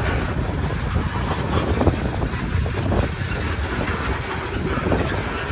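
Freight train tank cars rolling past at close range: a steady rumble of wheels on rail with scattered clicks as the wheels cross rail joints.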